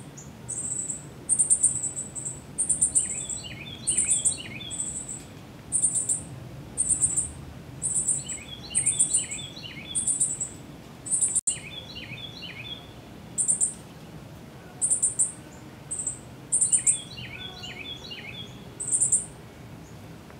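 Woodland chorus: insects calling in short, high, buzzy pulses about once a second, loudest of all. A bird repeats a short song of quick falling notes every four to five seconds.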